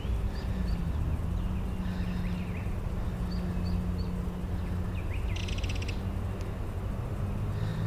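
Small birds chirping outdoors: a few short rising chirps near the start and a quick run of three more a few seconds later, over a steady low rumble. A brief buzzy rattle comes about five and a half seconds in.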